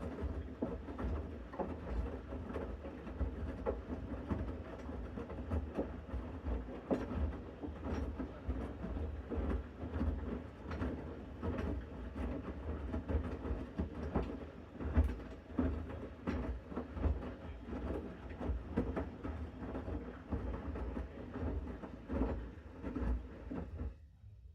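Bosch Series 6 front-loading washing machine in its main wash on a 60° mixed load: the drum turning the wet laundry with a steady low rumble and irregular knocks and clicks. The sound drops away sharply near the end.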